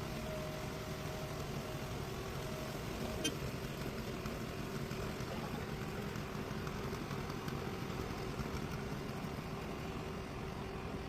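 Truck-mounted concrete pump's engine running steadily while pumping concrete, with a single sharp click about three seconds in.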